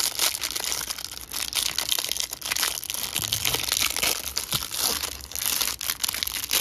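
Clear plastic wrapper crinkling and crackling as hands tear it open and peel it off a stack of trading cards, with a dense run of sharp crackles all through.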